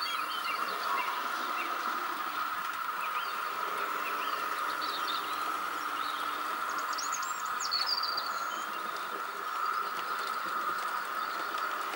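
OO gauge model trains running on the layout: a steady motor whine and wheel rumble on the track, with scattered bird chirps above it.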